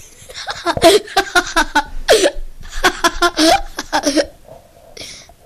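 A person laughing in rapid, choppy runs of short 'ha' pulses, several bursts a second, tailing off about four and a half seconds in.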